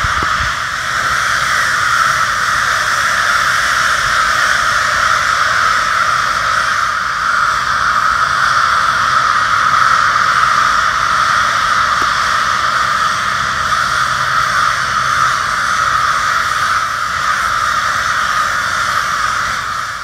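A huge flock of crows cawing all at once, a dense, steady din of overlapping calls with no single voice standing out.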